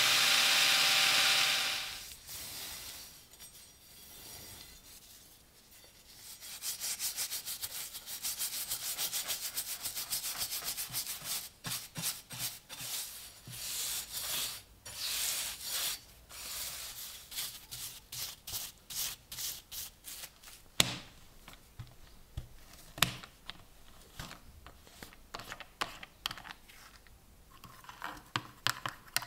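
A cordless drill spinning a wire brush wheel against the rusty steel of a bayonet crossguard, stopping about two seconds in. After a short lull come many quick, even rubbing strokes on the steel blade, then scattered lighter strokes and a few sharp clicks near the end.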